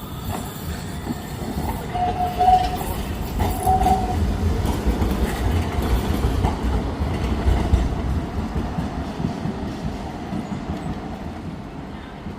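Tram rolling past on street rails: a rumble and clatter of wheels on track that builds to its loudest midway and then fades. Two brief high tones sound a couple of seconds in.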